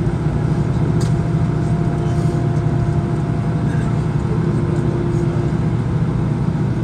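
Airbus A320 cabin noise while taxiing to the gate after landing: the jet engines at idle with a steady low hum and a few steady tones above it, heard from inside the cabin.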